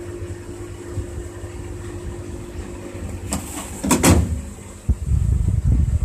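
Pitsos Vario 5 washing machine running with a steady hum and low rumble. About three seconds in, a quick sliding scrape and a couple of clacks come from its plastic detergent drawer being pushed shut. The rumble grows louder near the end.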